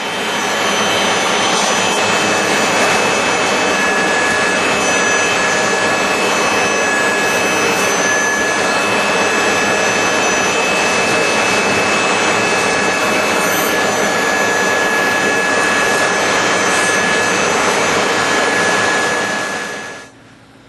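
Vacuum cleaner running steadily with a high whine, cleaning dust and lint off clogged refrigerator condenser coils, then switching off near the end.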